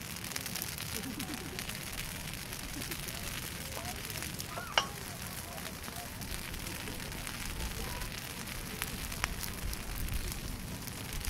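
Brush bonfire of piled sticks crackling and popping as it burns, with one sharp, louder crack a little under five seconds in.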